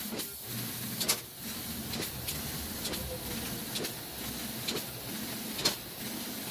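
CNC fiber laser cutting holes in 11-gauge steel square tubing: a steady hiss of cutting and machine noise, with a sharp click about once a second.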